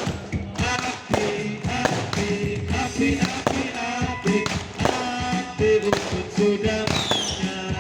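Music: held melodic notes over a quick, even tapping beat. A brief whistling glide comes near the end.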